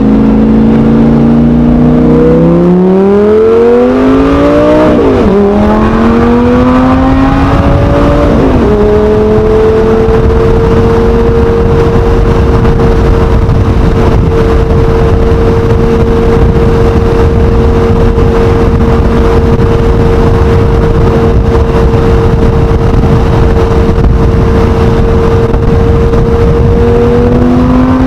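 Lamborghini Gallardo V10 engine and exhaust accelerating hard, climbing in pitch and dropping sharply twice as it shifts up, then holding steady revs for a long stretch before it begins to climb again near the end.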